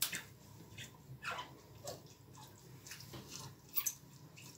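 Faint rustling and crinkling of a thin plastic refrigerator bag being torn off and handled, with a sharper crinkle near the end. Two short falling squeaks come a little over a second in.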